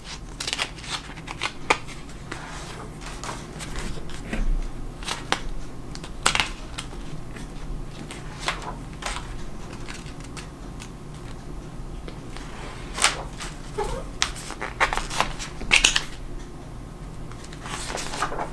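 Model-kit packaging and small parts being handled: scattered rustles, crinkles and light plastic clicks, with a few sharper clicks around the middle and near the end.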